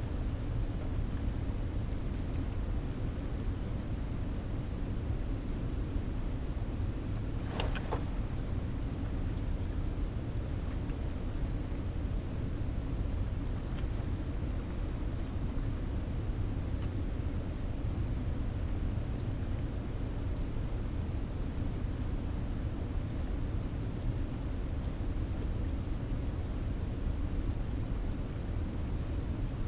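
Steady low rush of water pouring through and below a spillway, with insects trilling steadily high above it. A single short click about eight seconds in.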